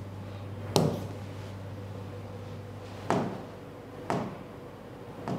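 Four short sharp taps spaced a second or more apart, the first about a second in and the loudest, over a steady low hum.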